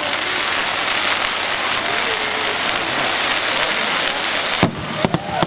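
Fireworks display: a dense, steady crackling hiss for about four and a half seconds, then several sharp bangs of shells bursting in quick succession near the end.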